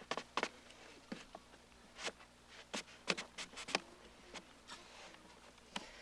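Light, irregular wooden knocks and clicks from work on a birch-bark canoe's cedar ribs and sheathing, with a quick run of about five near the middle.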